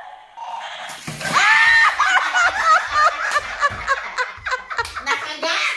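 A sudden high-pitched startled shriek about a second in as the toy bulldog snaps at the hand taking its food, breaking into loud laughter from the woman and others.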